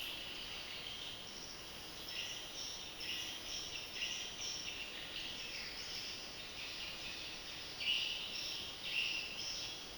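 Small animals chirping: short high-pitched chirps repeating irregularly over a faint steady hiss, a little louder about eight and nine seconds in.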